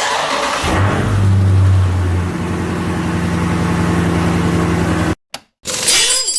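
Car engine running with a steady hum that shifts pitch once or twice, cutting off suddenly about five seconds in. A short, brighter sound follows near the end.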